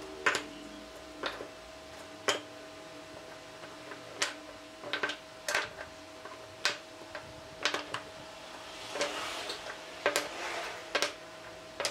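Small wooden blocks set down one by one on a wooden workbench and into a wooden jig: light wooden knocks and clicks, about a dozen, at uneven intervals, over a faint steady hum.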